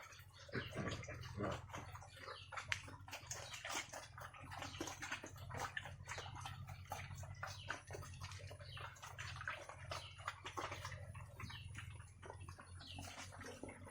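Pigs eating wet feed: a continuous, busy run of wet smacking, slurping and chewing clicks, over a steady low hum.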